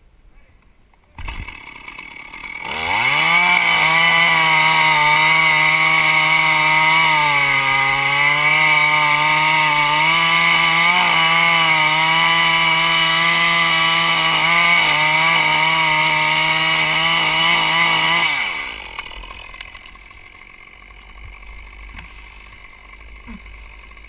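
Chainsaw revving up about three seconds in and running at full throttle as it cuts through an oak trunk, its pitch sagging and wavering under load. It falls away about eighteen seconds in.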